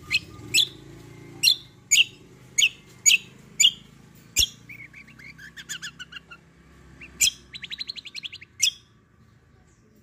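A caged kecial kombo songbird singing: a run of sharp, loud notes about two a second, then a softer quick chattering phrase, then a fast trill ending in one more loud note.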